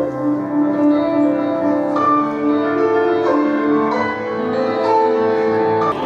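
Instrumental music: a slow melody of long held notes.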